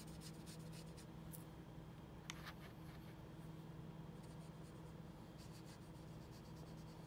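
Faint quick strokes and dabs of a wet watercolour brush on paper, in two runs with a pause between them, and a single sharp click about two seconds in, over a low steady hum.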